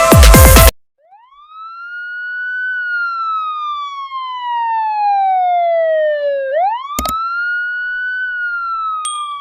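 Wailing siren: a single clean tone with overtones rises quickly, sinks slowly for about five seconds, sweeps back up and starts sinking again, with a brief click partway through. A burst of electronic dance music cuts off just before the siren starts.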